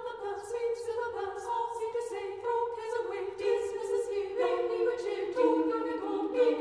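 Background music of a choir singing, several voices on sustained notes that change every fraction of a second.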